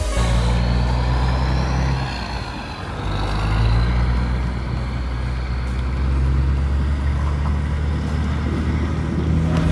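Kenworth W900 semi tractor's diesel engine pulling a trailer away under load. The engine eases off briefly about two seconds in, then pulls hard again.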